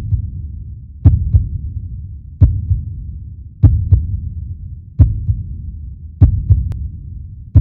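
Slow heartbeat sound effect: paired low thumps repeating about every 1.3 seconds over a steady low rumble.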